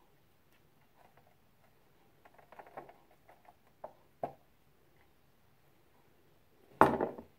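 Measuring spoon and spice jar being handled while ground ginger is spooned out: a few soft clicks and taps, then one loud knock near the end.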